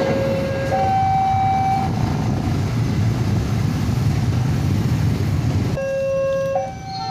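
Level-crossing electronic warning alarm alternating between a low and a higher tone, about a second each. It stops about two seconds in while the barrier lifts, leaving the rumble of many motorcycle engines waiting at the crossing. The two-tone alarm starts up again near the end.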